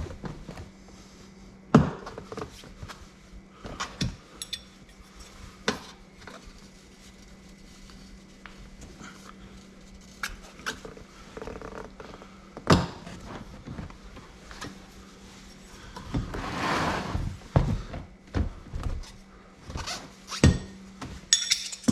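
Irregular knocks and clicks of steel tire levers against a motorcycle wheel rim as the stiff last section of a 19-inch off-road tire bead is pried on. About two-thirds of the way through there is a longer scrape of the tire rubber dragging over the rim, followed by more sharp knocks near the end.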